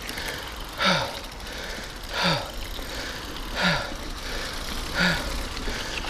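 Mountain biker breathing hard with the effort of riding: four heavy exhales about a second and a half apart, each with a short falling grunt, over a low steady rumble of the ride.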